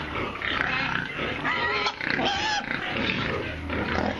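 Several domestic pigs vocalising close by in their pen, with a higher, pitched call near the middle.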